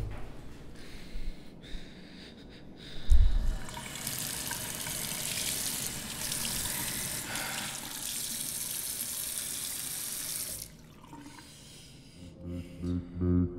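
Water running from a bathroom sink faucet into the basin as a steady hiss, starting about four seconds in and cut off suddenly about ten seconds in. A single low thump comes a second before the water starts.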